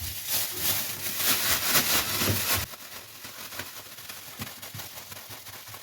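Food-preparation handling noise: a rapid run of rustling knocks for about two and a half seconds, then quieter scattered clicks.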